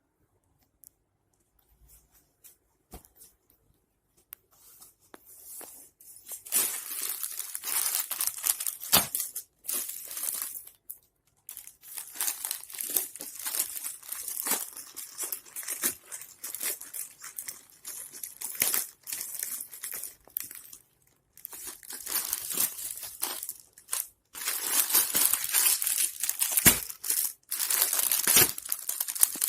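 Plastic courier packaging crinkling and tearing as it is handled and pulled open, in long bursts with short pauses, after a few seconds of near quiet with a few light clicks.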